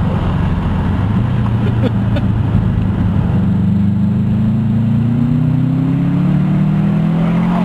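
2007 Subaru Impreza WRX STI's turbocharged 2.5-litre flat-four, heard through a Borla Hush cat-back exhaust from inside the cabin, pulling under acceleration. The engine note holds fairly level for the first couple of seconds, then climbs steadily as the revs rise.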